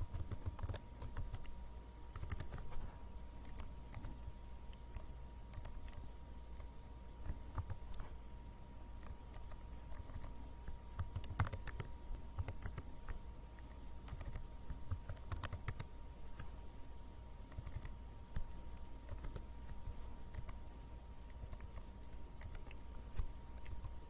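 Computer keyboard typing and mouse clicking, irregular scattered clicks over a faint steady hum.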